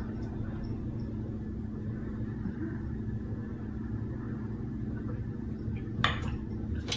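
Steady low room hum, with a short sharp knock about six seconds in and another at the very end.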